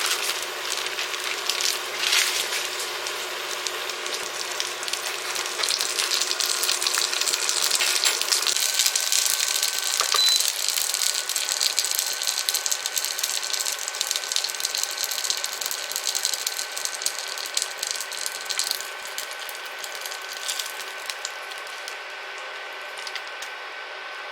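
A continuous clatter of small clicks and rattles over a hiss, thinning out over the last few seconds.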